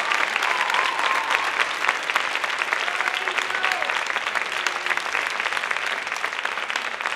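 Theatre audience applauding, a dense clapping that slowly grows quieter.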